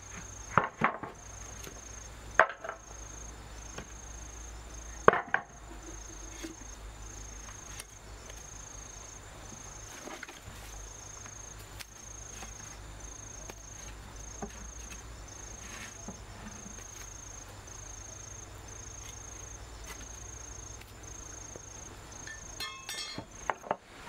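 A wooden plank knocking against hollow log hive sections and the ground, a few sharp wooden knocks in the first five seconds, then lighter handling clicks near the end. An insect's high, evenly pulsing buzz runs underneath.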